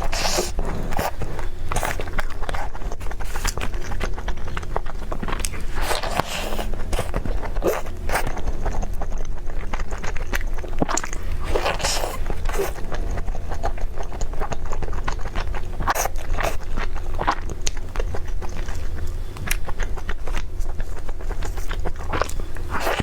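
Close-up eating sounds: biting and chewing, with many short crisp crunches and clicks, over a steady low hum.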